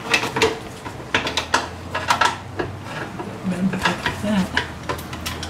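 Irregular metal-on-metal clinks and knocks of tools against the alternator and its bracket as it is worked loose, several in quick succession.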